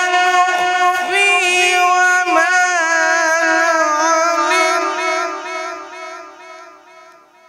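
A man reciting the Quran in a long, ornamented melodic line, holding the note with small turns and glides in pitch, then fading away over the last couple of seconds.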